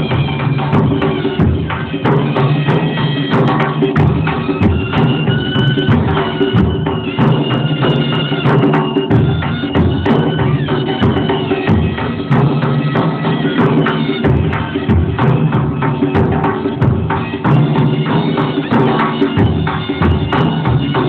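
Large nagara kettledrums beaten together in fast, unbroken drumming, with a high wavering melodic line over the beats.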